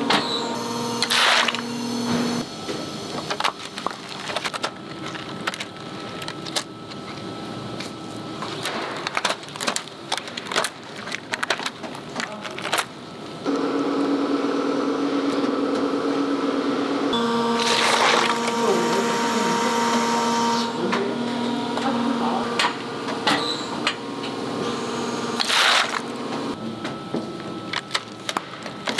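Steady hum of factory molding machinery, with short hisses of a compressed-air blow gun about a second in and twice more later. Small clicks and rustles come from silicone brushes being handled and pulled from the mold.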